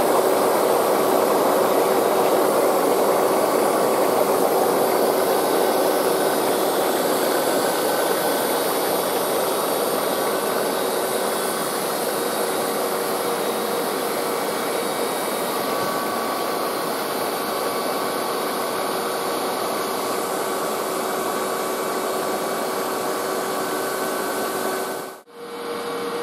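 Pressurised water jetting up through perforated hoses in a shallow water-feature tray, a steady rushing hiss. It eases over the first ten seconds or so as the pressure falls from an initial burst towards two bar, then cuts off sharply near the end.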